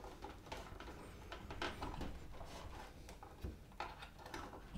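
Faint handling sounds of RCA cable plugs being pushed into the jacks on the back of a VCR: a few light clicks and rustles of the cable.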